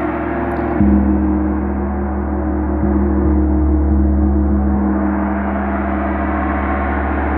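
Gong played with soft strokes, ringing with many overlapping steady tones; a fresh stroke about a second in brings up a deep, sustained low hum that swells and lingers.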